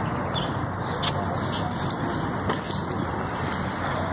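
Steady outdoor background noise, an even rumbling hiss with no breaks, with a few faint high chirps over it.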